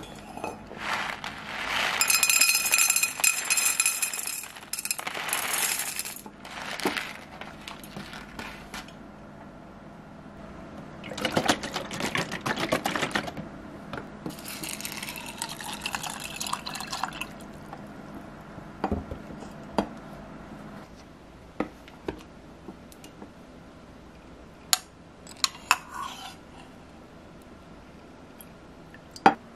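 A foil granola pouch crinkling as it is handled and opened. Chocolate granola and milk are poured into an enamel mug, followed by a few light clinks of a metal spoon against the mug in the second half.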